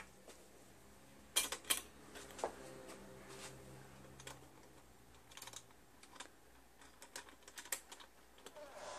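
Light clicks and taps of the plastic lens panels and a small metal fitting as a vintage Christmas color wheel's center hub is fastened by hand. Two sharper clicks come about a second and a half in, then scattered small ones.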